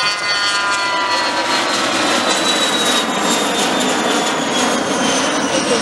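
Cessna 680 Citation Sovereign's twin Pratt & Whitney Canada PW306 turbofans at climb power just after lift-off in a touch-and-go. The jet roar is loud, and a high whine over it falls steadily in pitch as the jet passes and climbs away.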